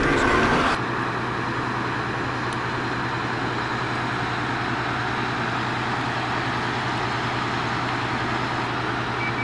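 A vehicle engine idling steadily: one constant low hum under an even noise. A brief, louder pitched sound at the start cuts off suddenly under a second in.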